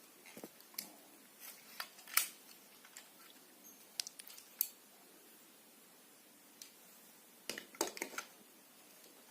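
Scattered faint plastic clicks and snaps, one or two at a time, with a small cluster near the end: the parts of a Toobott2 transforming toy robot being handled and moved.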